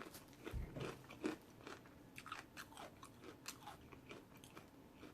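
A person chewing food close to the microphone: faint, quick mouth clicks and soft crunches at an uneven pace.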